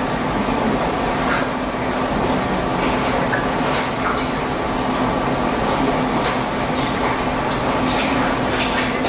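Steady room hum with a constant low tone, with a few faint clicks now and then.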